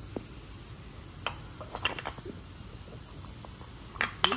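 Wooden toy pieces knocking together in a few short, sharp clacks, the loudest pair near the end.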